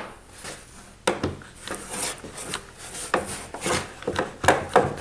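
A thin panel sliding and scraping on a workbench top as it is positioned and fixed with a one-handed bar clamp: a string of irregular rubbing and scraping strokes, each shorter than a second, starting about a second in.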